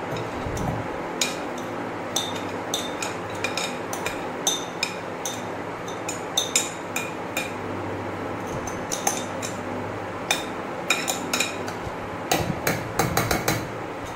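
A metal spoon clinking and scraping against a bowl and a steel grinder jar as soaked toor dal is spooned and tipped in, with the soft patter of the lentils dropping. The clinks are short and irregular, coming thicker near the end, over a steady low hum.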